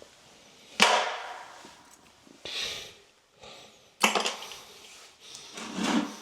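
Old faucet and drain parts tossed into a garbage bucket: two sharp knocks with short fading clatter, about a second in and again about four seconds in, with softer bumps of handling between.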